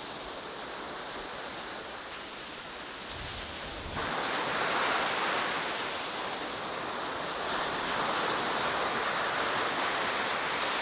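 Small ocean waves breaking and washing up a sandy beach, a steady rush of surf that gets suddenly louder about four seconds in.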